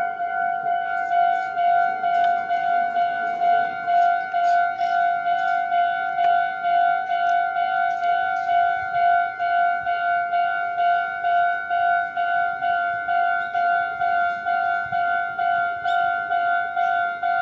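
Japanese electronic railroad-crossing alarm ringing its repeating bell-like tone at a steady pace of about two strikes a second, the warning that a train is approaching and the crossing is closed.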